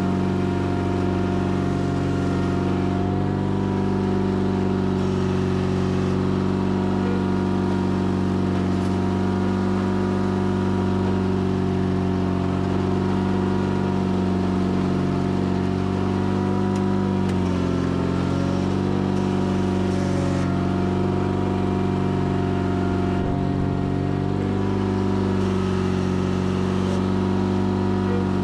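Sears Craftsman FF24 garden tractor engine running steadily while working. Its pitch dips briefly about two-thirds of the way in, then recovers.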